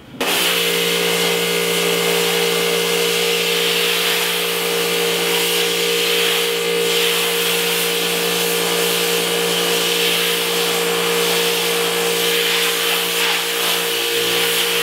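Pressure washer running, very noisy: a steady pump hum with a fast low pulsing under the hiss of the water jet. The jet is blasting the reclaimer-softened emulsion stencil out of a screen-printing screen's mesh. It starts just after the opening.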